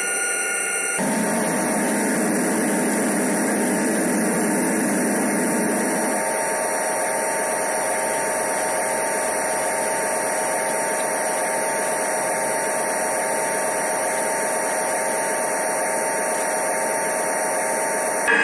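Model freight train running on the layout: a steady mechanical hum and whir of the motor and of wheels rolling on the rails, with a couple of faint constant tones. A lower rumble underneath drops away about six seconds in.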